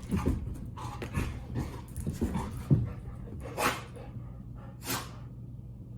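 A dog snuffling with short, low snorts, then sneezing twice, about three and a half and five seconds in.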